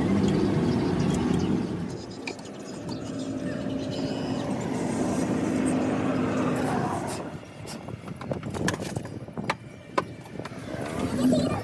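A motor vehicle engine runs for about seven seconds, swelling and easing off twice, then gives way to scattered sharp metallic clicks and taps.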